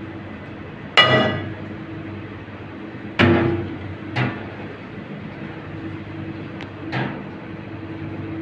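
Stainless-steel pot and mesh strainer clanking against a steel sink while boiled potatoes are drained: four sharp metallic knocks, the first ringing on, over a steady low hum.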